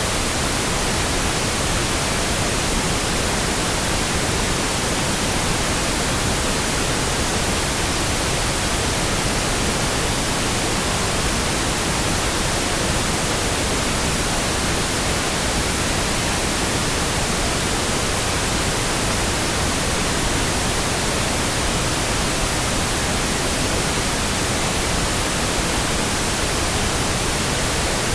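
Pink noise: a steady, unchanging hiss spread evenly across the whole range, with no rhythm or breaks.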